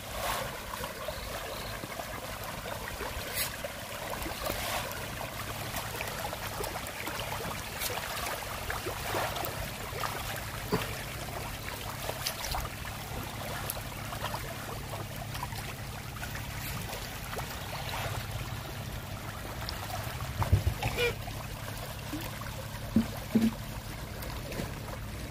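A dense school of farmed fish churning at the pond surface as they take feed: a continuous patter of many small splashes, with a few louder ones about twenty seconds in.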